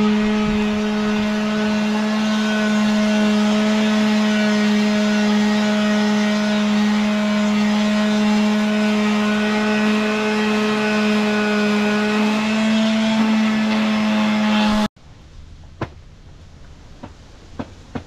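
Handheld corded electric sander running steadily against a longhorn steer's horn, a constant motor whine. It stops abruptly about 15 seconds in, and a few faint clicks follow.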